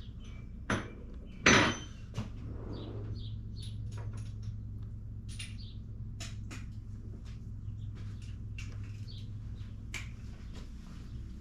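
Metal hand tools clinking and knocking: a socket and extension being handled while the 17 mm oil drain bolt is worked loose, with irregular small clicks and one louder knock about a second and a half in. A low steady hum runs underneath.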